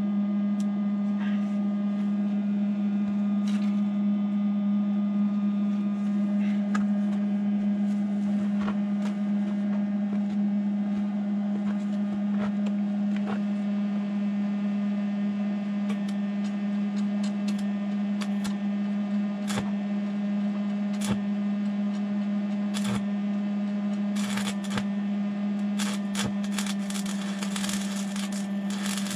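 A steady hum runs throughout, with scattered clicks, then an electric welding arc crackling and sputtering in short bursts over the last few seconds as a steel PTO shaft is welded.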